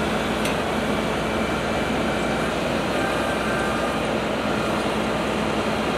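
Steady outdoor hum of idling vehicle engines, at an even level without rising or falling.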